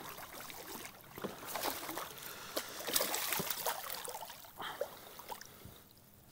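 Hooked smallmouth bass splashing and thrashing at the surface beside a kayak as it is drawn in to be landed. The splashing is loudest in the middle and dies down near the end.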